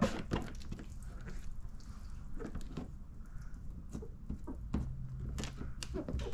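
Faint handling sounds of wet paint protection film being worked on a truck fender: scattered light taps, clicks and rubs.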